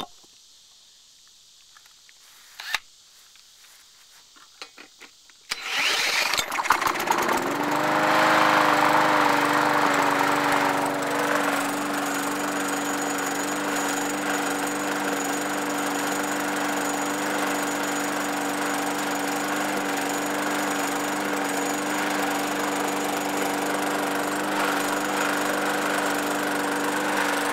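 A few small clicks, then a drill spins a Briggs & Stratton 450-series lawnmower engine over through a socket. The engine catches about six seconds in, revs up, and settles by about twelve seconds into a steady, even run. It is no longer surging up and down now that its bent governor spring has been replaced.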